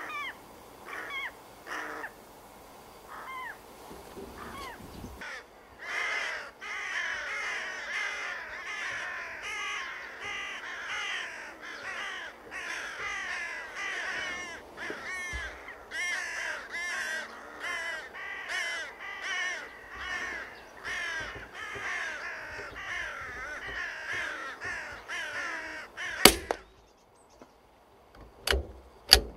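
A flock of carrion crows cawing over and over: a few scattered calls at first, then from about six seconds in a dense chorus of overlapping harsh caws, the birds calling out at the dead crow lying in the field. About four seconds before the end a single sharp crack cuts through and the calling stops, with a couple of fainter clicks after it.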